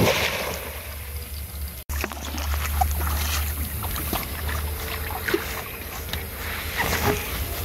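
A hooked fish being landed in a landing net at the water's edge: short scattered splashes and clicks over a steady low rumble.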